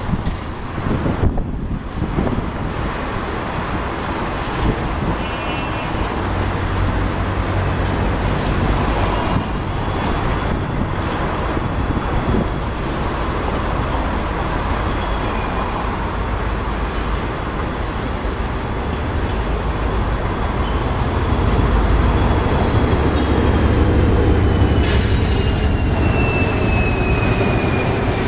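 A train of 25G passenger coaches rolls slowly past, with a steady rumble of wheels on rail. Near the end a deeper rumble builds as a diesel locomotive at the rear of the train comes by, and a thin squeal slowly falls in pitch.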